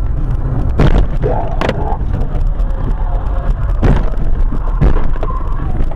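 Car on the road: a steady low rumble of engine and tyres, with four sharp knocks scattered through it.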